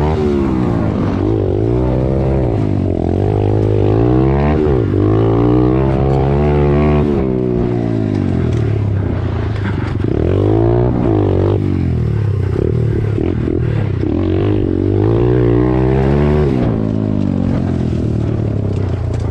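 Off-road motorcycle engines revving, pitch climbing and falling again and again over a steadier low engine note.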